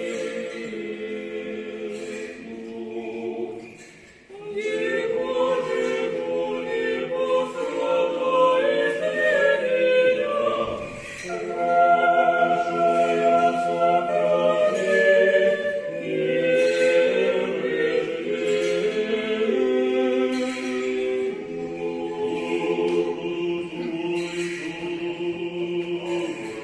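Mixed church choir singing unaccompanied Orthodox liturgical chant, several voices in harmony. The singing dips briefly about four seconds in, then returns fuller and louder.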